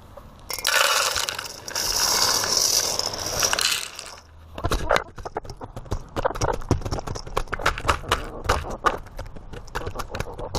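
Feed poured from a container into a dish, rattling for about three and a half seconds. Then chickens peck at the feed in the dish, a quick, irregular run of sharp taps close up.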